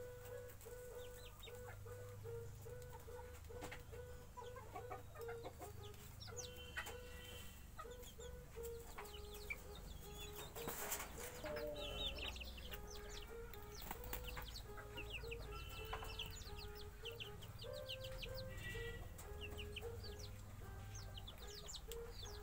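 Chicken chicks peeping, many short high falling peeps, over low clucking notes that repeat two or three times a second. A brief rustle about eleven seconds in.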